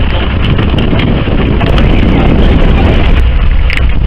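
Fishing boat's engine running with a steady low hum, under heavy wind noise buffeting the microphone.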